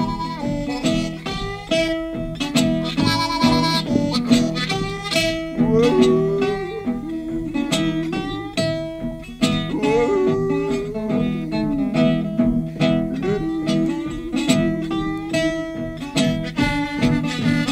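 North Mississippi hill country blues: acoustic guitar played with a slide, picking a steady repeating rhythm, with a harmonica over it. Notes bend and glide in pitch throughout.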